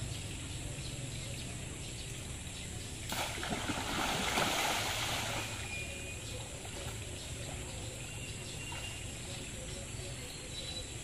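Splashing in shallow muddy water for about two seconds, starting about three seconds in, as a long-handled landing net is plunged in and scoops at a large catfish. A few faint bird chirps follow.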